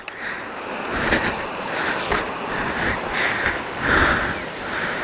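Footsteps crunching through dry grass and gravel at a steady walking pace, over the steady rush of a river.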